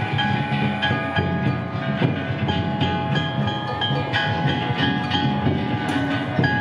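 Danjiri festival music: bronze hand gongs (kane) struck over and over so that they ring continuously, with a taiko drum beating underneath.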